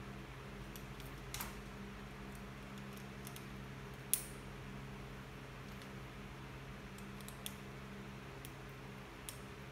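Faint clicks and taps of a Torx key working the clamp bolt of a hydraulic remote lockout lever on a bike handlebar. There are four or so sharp ticks, the loudest about four seconds in, over a steady low hum.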